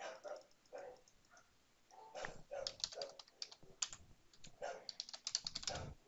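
Typing on a computer keyboard: three quick runs of keystrokes with short pauses between them.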